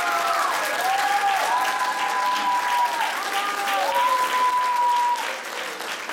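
Audience applauding, with a melody of long held notes sounding over the clapping until about five seconds in. After that the applause goes on alone, a little quieter.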